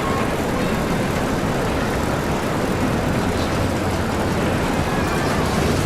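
Amusement park roller coaster running along its track: a steady rumble, heavy in the low end.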